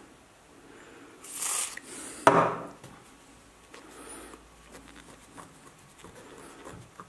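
Rubbing sounds of small handwork, a cloth or tool working over a guitar knob to wipe off excess paint. Two louder rubbing strokes come about a second and a half and two seconds in, followed by faint scattered handling noises.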